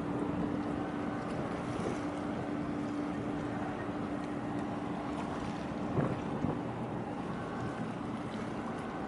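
Harbour ambience: wind buffeting the microphone over a steady low hum from a ship's engine across the water. The hum drops out about two-thirds of the way through, and there is one short knock about six seconds in.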